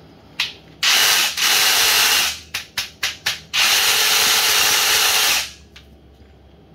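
A power tool run in bursts: one burst of about a second and a half, a few quick blips, then a longer burst of about two seconds.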